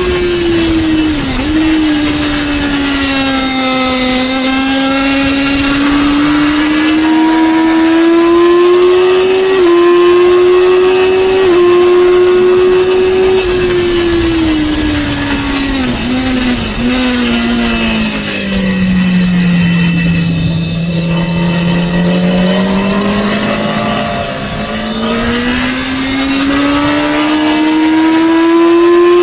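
Sport motorcycle engine running hard at high revs, heard from the rider's seat. The pitch holds high with brief breaks and small steps at gear changes. Past the middle it falls low for several seconds, then climbs steadily again as the bike accelerates.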